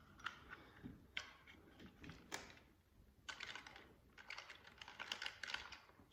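Faint, scattered light clicks and taps from handling a plastic old-work electrical box while its drywall clamp screws are being tested.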